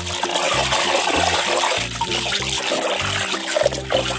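Soapy water splashing and sloshing in a plastic basin as a hand scrubs a plastic toy fish, over background music with a low, changing bass.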